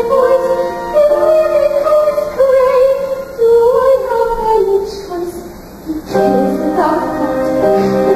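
A young woman's voice singing a stage-musical melody over accompaniment. The singing falls away briefly past the middle, then the music comes back fuller.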